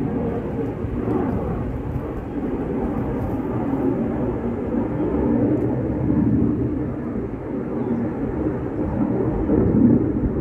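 Aircraft flying high overhead: a steady low rumble that swells briefly near the end.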